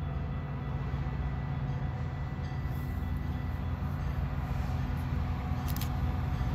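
Metra diesel commuter train approaching: a steady low rumble of its locomotive that grows slightly louder as it nears.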